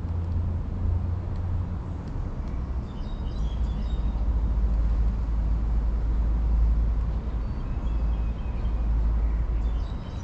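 Outdoor ambience: a steady low rumble, with small birds chirping a few times about three seconds in and again near the end.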